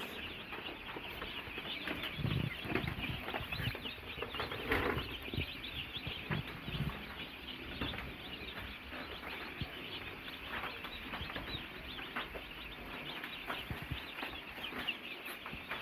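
A flock of about a hundred week-old chicks peeping continuously, many high cheeps overlapping, with a few soft thuds.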